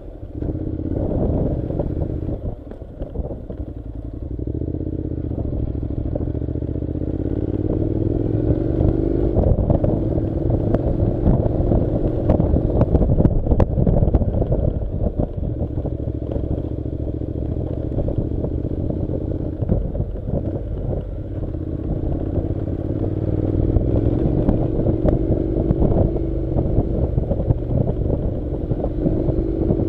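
Honda NC700's 670 cc parallel-twin engine running at low road speed, its pitch rising slowly and falling back several times, with scattered knocks and clatter from riding over gravel.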